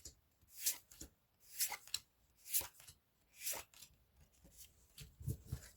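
Pokémon trading cards being slid one at a time from the back of a freshly opened booster pack to the front: a soft papery swish about once a second, four times, then a couple of low soft knocks near the end.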